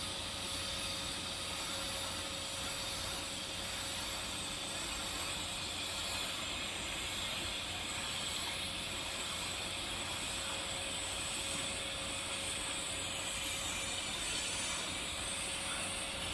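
TIG welding arc on a pipe joint with an even hiss, over a faint steady hum and a thin steady tone.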